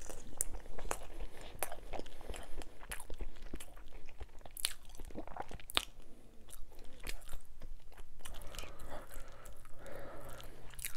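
A person biting into a sope and chewing it: irregular mouth clicks and crunches of the fried masa and toppings, several a second.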